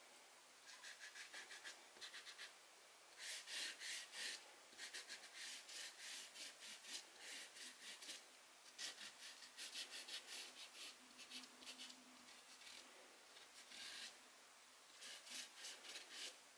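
Faint, quick scrubbing strokes of charcoal guidelines being rubbed off a canvas sheet by hand, in several runs with short pauses between them.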